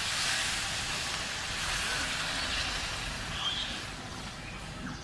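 Water poured into a hot steel pan of spice-fried chicken, potatoes and jackfruit, hissing and sizzling as it hits the pan, then stirred with a spatula. The sizzle eases after about three seconds. This is the stage where water goes into the well-fried meat to make the gravy.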